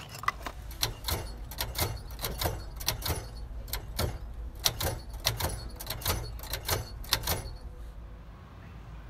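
A fairly even series of sharp taps, about three a second, over a low rumble; the taps stop about seven and a half seconds in.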